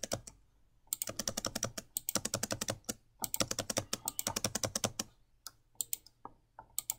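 Computer keyboard typing: two quick runs of keystrokes, then a few separate clicks near the end.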